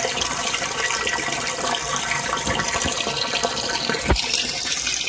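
Water from a pump-driven return jet pouring steadily into a barrel aquaponics fish tank, splashing and bubbling at the surface. A single dull thump about four seconds in.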